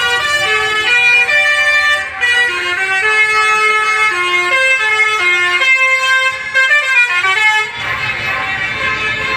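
A tour bus's Basuri multi-tone 'telolet' air horn playing a fast melody of short stepped notes, stopping about eight seconds in and leaving a low rumble.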